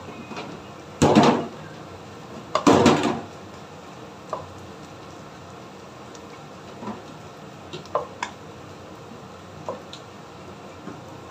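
Wooden spatula stirring and scraping dried shrimp and shallots around a non-stick wok as they fry. There are two louder scrapes, about one and three seconds in, and then scattered light taps of the spatula on the pan.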